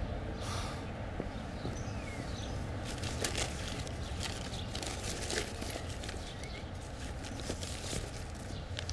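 Steady low outdoor rumble with scattered light clicks and rustles, the sort made by handling at an open car window.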